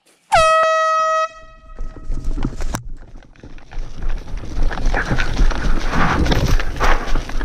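One loud, steady air horn blast lasting about a second, the signal that starts an airsoft game. It is followed by the rustle and thuds of players moving off on foot, growing louder toward the end.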